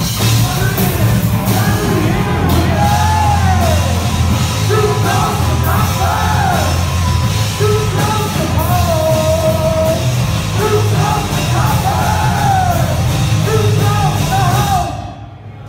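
Live rock band playing: drum kit, bass guitar and electric guitar, with an amplified harmonica wailing bending lead lines over them. The music stops near the end.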